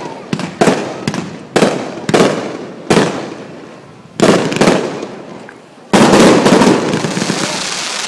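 Aerial fireworks shells bursting overhead, about eight sharp bangs each fading away. The loudest comes about six seconds in and is followed by a long, dense tail of sound.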